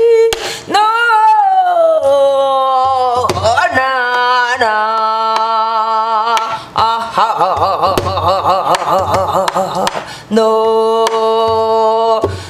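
A woman singing gueum, Korean traditional vocal mouth music on wordless syllables, in long held notes that slide between pitches and swell into a wide vibrato in the middle. A few strokes of a stick on a buk barrel drum mark the phrases.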